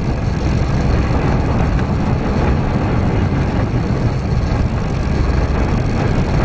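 Roller coaster ride recorded on board: a loud, steady rumble of the train running along the track, with wind rushing over the camera's microphone.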